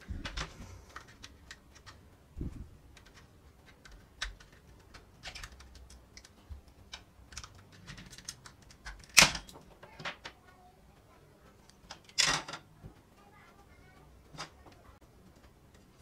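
Plastic back cover of a CHUNGHOP universal AC remote being pried open by hand: many small clicks and creaks of the case clips, with two louder snaps about nine and twelve seconds in as the clips give way.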